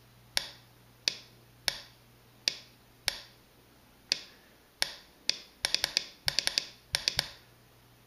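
Relay inside a Power Switch Tail II clicking as it switches a lamp on and off while a Makey Makey circuit is made and broken. Single sharp clicks come every half second to a second at first, then quick runs of clicks close together.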